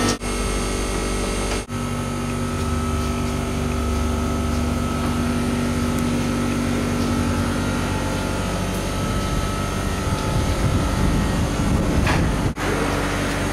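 Steady hum of electric winery machinery running, with several held pitches and a heavier low rumble about three to five seconds in. The sound cuts out briefly twice.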